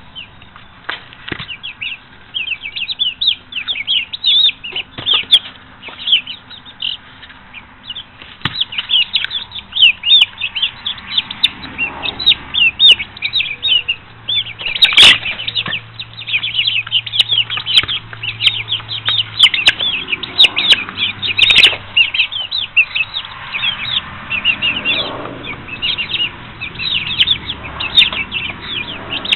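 Chicks in their fifth week peeping continuously, many short high cheeps overlapping, with a few sharp knocks scattered through.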